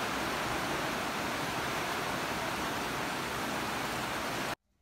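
Heavy rain pouring down, a dense steady hiss that cuts off abruptly just before the end.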